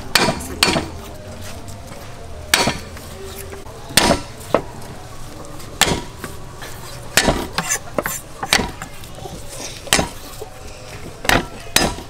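Cleaver striking garlic cloves on a thick round wooden chopping board, chopping them up. It gives sharp knocks at uneven intervals, about one a second, some coming in quick pairs.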